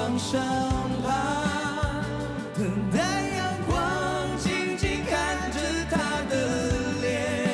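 Three male voices singing a Mandarin pop ballad together, live on stage, with a band accompaniment that has a steady beat and bass underneath.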